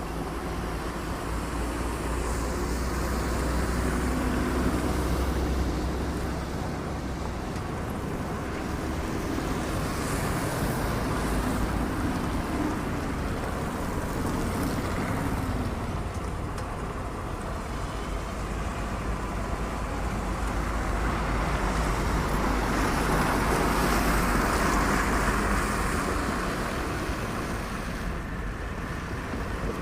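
Road traffic noise: the steady rumble of vehicle engines and tyres, swelling twice as vehicles pass close by.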